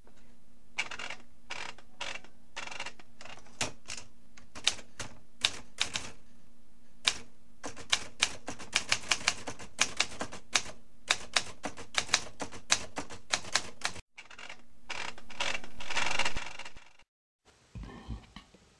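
Typewriter keys clacking in uneven runs of keystrokes, a sound effect matched to text being typed across the screen. About fourteen seconds in, a swelling hiss rises and cuts off suddenly, followed by a few low thuds.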